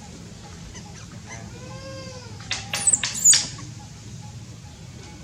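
Animal calls: one short call that rises and falls in pitch, then a quick cluster of loud, shrill squeals.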